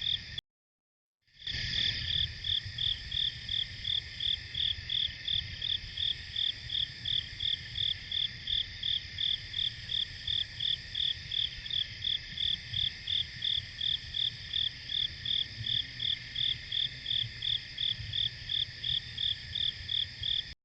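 A cricket chirping steadily, about two and a half chirps a second, over a continuous high-pitched chorus of night insects. The sound drops out for about a second near the start.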